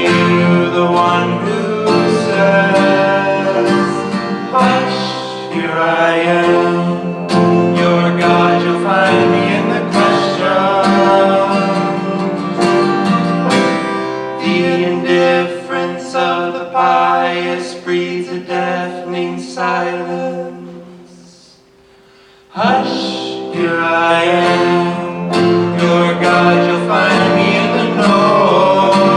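Singing voice with acoustic guitar accompaniment, a folk-style song. About twenty seconds in the music fades away, and the guitar and voice start again abruptly a second or two later.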